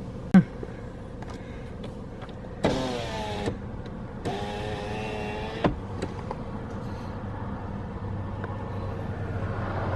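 A car's electric window motor whirring in two runs, a short one and then a longer one, over the steady low hum of the car. Near the end the low engine rumble grows louder.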